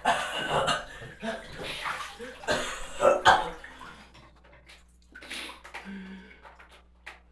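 Water splashing and sloshing in irregular bursts, as in a bathtub, strongest in the first few seconds and then fainter.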